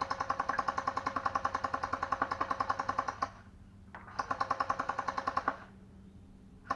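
M4 Punisher gel blaster firing full-auto, its electric gearbox cycling in rapid, evenly spaced clicks at about a dozen shots a second. A burst that is already running stops a little over three seconds in, a second burst follows for about a second and a half, and a third starts near the end.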